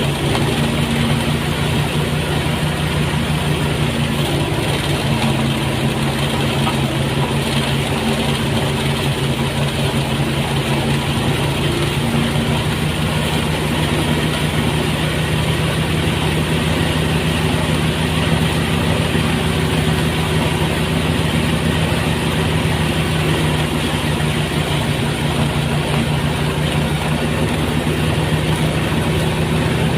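Engine-driven rice threshing machine running steadily at a constant speed, a continuous loud mechanical hum.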